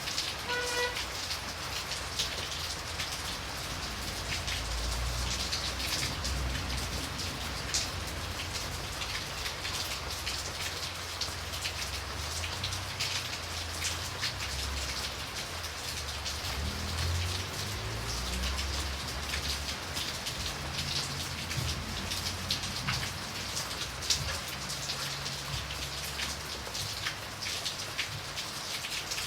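Steady rain with a dense patter of individual drops hitting a surface, and a low rumble coming and going underneath.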